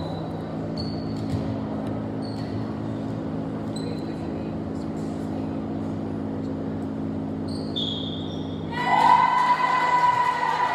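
Gym hall ambience: sneakers squeak briefly on the hardwood volleyball court every second or so over a steady low hum. About nine seconds in, loud high-pitched voices start shouting and hold on.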